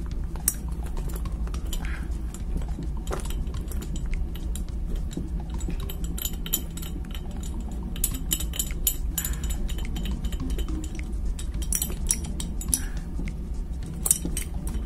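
Metal parts of a mechanical overspeed trip being worked by hand: scattered clicks and light metallic clinks as the lever, rod and housing are moved and knock together, over a steady low hum.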